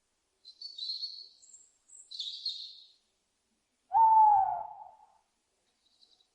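Small birds chirping high and thin in two short bursts, then about four seconds in a single loud owl call, one note that falls slightly in pitch and lasts about a second.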